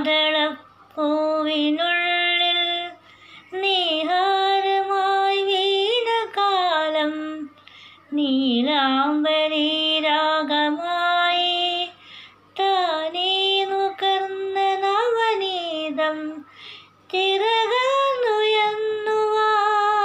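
A woman singing a Malayalam film song unaccompanied, in five phrases of long held notes with slides between pitches and short breaths between the phrases.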